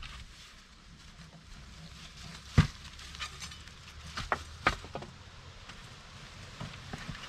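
Digging by hand in stony soil: a few sharp, scattered knocks of tool and stone, the loudest about two and a half seconds in, with quieter scraping in between.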